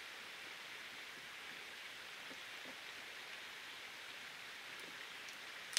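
Steady rushing noise of outdoor water, even and unbroken. A single sharp click comes just before the end.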